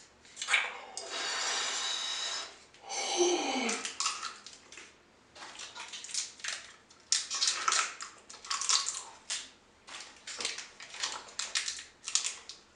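A person with extremely sour Warheads candy in the mouth hissing air in hard through the teeth twice, the second time ending in a falling whine. Then comes a long run of short, wet smacking and sucking mouth sounds.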